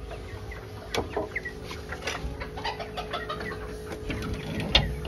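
Young chickens peeping and chirping with many short, high calls. Two sharp knocks on the pen's wooden slats come about a second in and near the end, the later one the louder.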